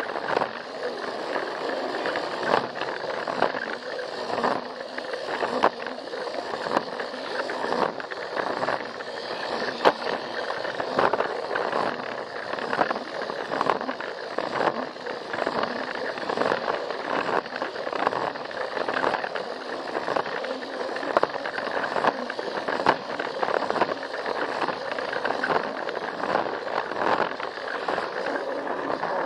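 Plarail toy train's small battery motor running and its plastic wheels rolling along plastic track, heard from a camera riding on the train, with frequent irregular clicks as it passes over the track joints.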